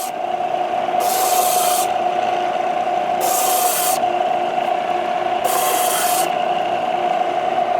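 An electric sander runs steadily on wooden blocks. Three times, a harsh hiss of sandpaper grinding the wood swells for most of a second as the sander is worked across the wood.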